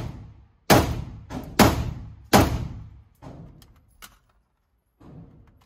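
Three AK-74 rifle shots in 5.45×39 mm, roughly a second apart, each echoing in an indoor range, followed by a few faint knocks.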